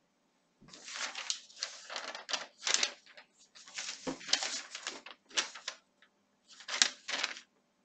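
A sheet of hole-punched notebook paper rustling as it is picked up and handled, in a run of short, irregular bursts.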